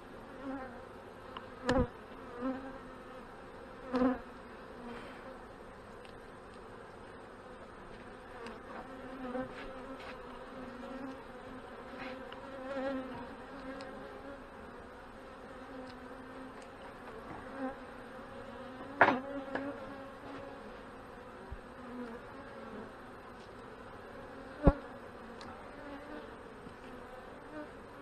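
Honey bee colony buzzing with a steady hum around its open hive, the bees stirred up while frames are lifted out. A few sharp knocks sound over it, about 2 and 4 seconds in and more loudly near 19 and 25 seconds.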